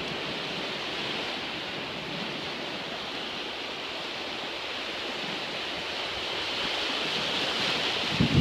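Surf washing up on a sandy beach: a steady hiss of breaking waves and foam that swells a little louder near the end. A couple of short low thumps come right at the end.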